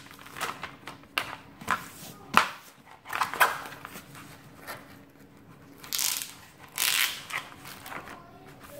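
Protective plastic film on a diamond painting canvas being peeled back and smoothed by hand: irregular crinkling and rustling, with two sharp crackles near the middle.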